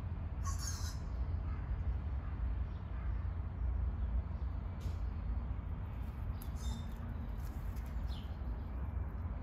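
Steady rain falling, with a low rumble under it. A few short bird chirps come through, the clearest about half a second in.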